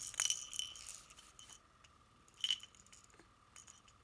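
Plastic baby rattle with small beads inside being shaken: a quick run of rattling and clinking in the first second and a half, then one short shake about two and a half seconds in.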